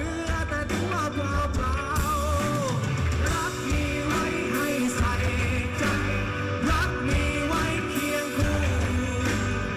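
A rock song with a sung lead vocal over a full band with bass and drums; the singer holds a note with wide vibrato early on.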